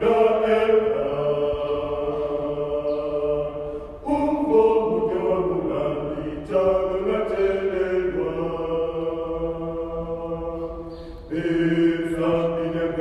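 A choir singing together, holding long notes in phrases a few seconds long with short breaks between them.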